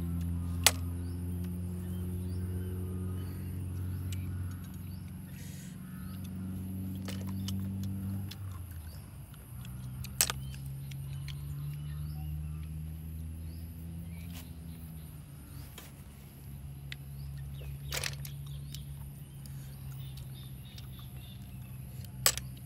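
A steady low motor drone that shifts in pitch about eight seconds in, with four sharp clicks scattered through it.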